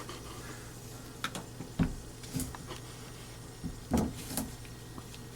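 A few scattered light knocks and clunks of handling, the loudest about four seconds in, over a steady low hum.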